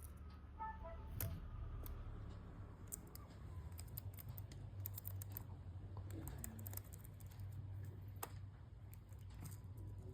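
Budgies making scattered sharp clicks and taps, with a few short faint chirps just under a second in, over a low steady hum.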